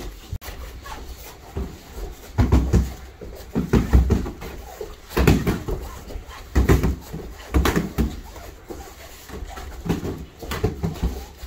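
Kicks and strikes landing on padded kick shields: irregular dull thuds, several coming in quick pairs.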